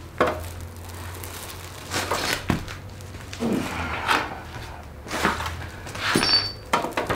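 Thunks, knocks and scraping as a cast-iron Ford 260 V8, freed from the car, is shifted by hand on its wooden cradle, with a few sharp knocks spread through, over a steady low hum.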